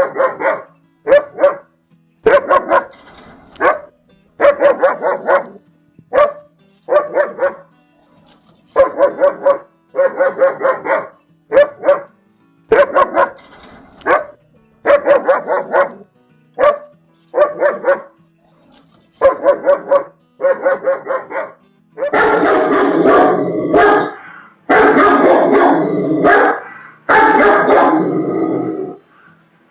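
German Shepherd barking in quick bursts of two to four barks, one burst every second or two. About eight seconds before the end, the barking turns into longer, denser runs.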